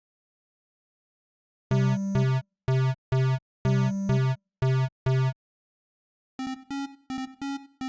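8-bit synthesized tugboat sound effect. A low buzzy horn-like tone sounds in two groups of four toots, and after a pause a quick run of short, higher beeps follows, about three or four a second.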